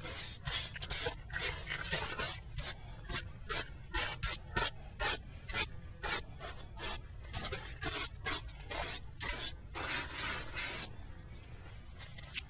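Rapid, repeated scraping strokes of a hard object worked against a black rubber pan, about two to three strokes a second, stopping shortly before the end.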